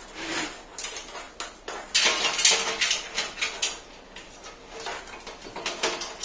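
A bundle of computer cables rustling and scraping as it is pushed and pulled through the cable-routing holes of a PC case, with small clicks and knocks. The handling is busiest about two seconds in.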